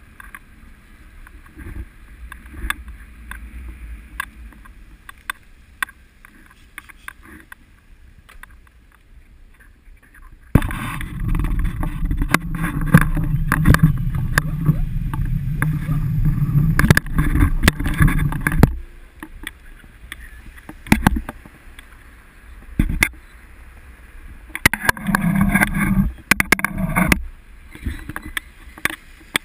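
Riding noise picked up by a camera mounted on a bicycle: light clicks and rattles, then from about ten seconds in some eight seconds of loud rumble and buffeting, with shorter loud bursts near the end.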